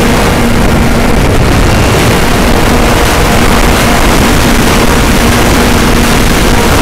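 Strong wind buffeting the microphone, with the faint steady drone of a TopModel Stinger RC airplane's motor and propeller under it, fading in and out.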